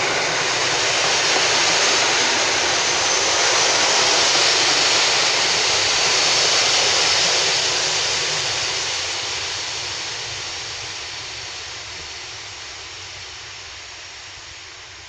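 Modernised EN57 electric multiple unit running past along the platform, a loud even rush of running noise that fades away from about eight seconds in as the train moves off.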